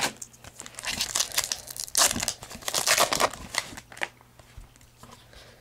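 Foil wrapper of a 2010 Topps Unrivaled football card pack crinkling and tearing as it is ripped open by hand: a run of crackly rustles that dies away about four seconds in.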